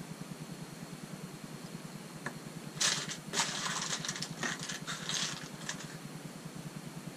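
Loose plastic Lego pieces clattering and clicking in a cardboard box as a hand rummages through them, for about three seconds from just before the middle. A steady low hum runs underneath.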